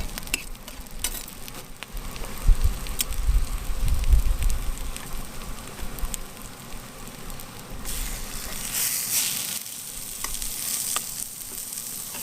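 Food sizzling in a frying pan on a wood-burning hot-tent stove, with clicks and knocks as the pan and utensils are handled. A few low thumps come a couple of seconds in, and the sizzle swells louder about nine seconds in.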